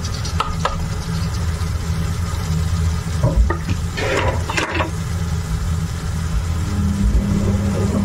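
Squid pieces sautéing in a stainless steel pan: a spatula scrapes and clicks against the pan briefly at the start, then the pan sizzles with a cluster of crackles about three to five seconds in. A steady low hum runs underneath.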